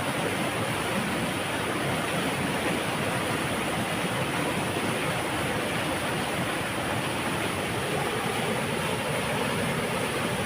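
Water rushing through a dam, a steady unbroken rumbling roar.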